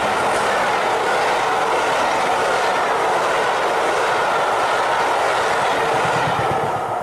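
A train running, a steady rumbling rush of noise that fades out near the end.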